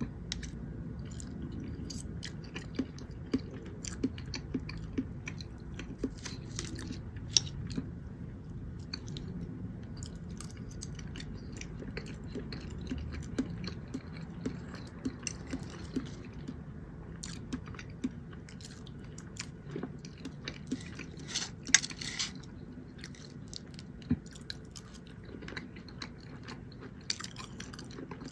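Close-miked chewing and mouth sounds of a person eating, with frequent small wet clicks and a few sharper ones, the loudest about two-thirds of the way through.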